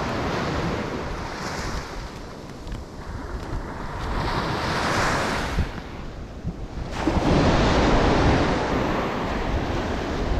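Small waves washing up on a sandy beach, with wind buffeting the microphone; the surf swells louder about seven seconds in.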